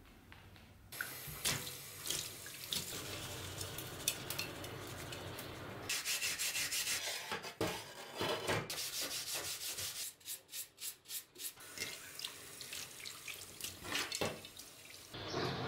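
A green scouring pad scrubbing a rusty steel dagger blade and its handle in a wet stainless steel sink, with water sloshing. The scrubbing is a steady rasp broken by short strokes, with a run of quick strokes, about five a second, some ten seconds in.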